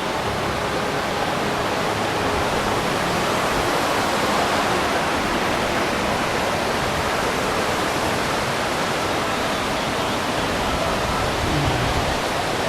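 Steady rushing water, like a stream or small waterfall, a constant even hiss.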